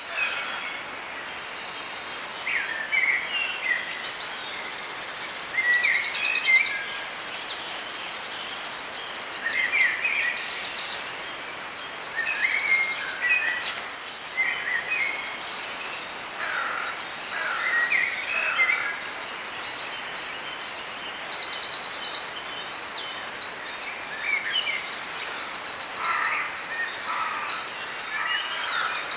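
Dawn chorus: several songbirds singing, with short phrases and rapid trills every second or two over a steady background hiss.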